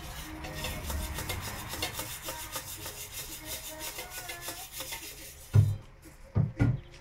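A mother cat licking herself clean after giving birth: her rough tongue makes quick, rhythmic rasping strokes, several a second. Near the end come three louder thumps.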